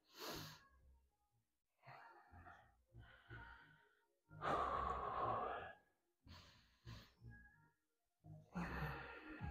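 A man breathing in short puffs while holding a wall sit, with one long, louder exhale about four and a half seconds in and more breaths near the end.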